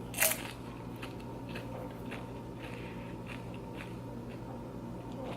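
A loud crunch as a bite is taken from a loaded tortilla-chip nacho, about a quarter second in, followed by chewing with soft, scattered crunches of the chips.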